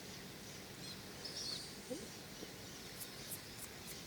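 Quiet outdoor background with scattered small bird chirps, including a few quick high ones about three seconds in.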